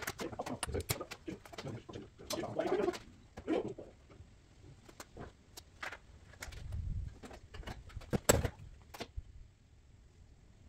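Hand tools clicking and knocking on metal in a VW Beetle's rear engine bay, with the loudest knock about eight seconds in. A bird cooing low a couple of seconds in.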